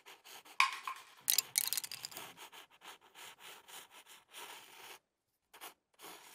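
Pencil scratching on paper in a rapid series of short strokes, loudest in the first two seconds, then fainter and sparser.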